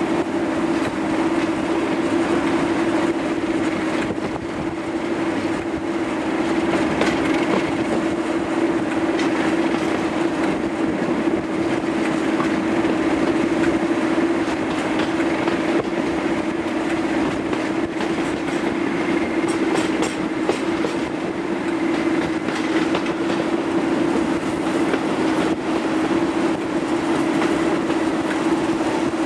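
Class 37 diesel locomotive's English Electric 12CSVT V12 engine working hard under power, a steady loud drone heard from just behind the loco. Wheels clatter over the rail joints underneath.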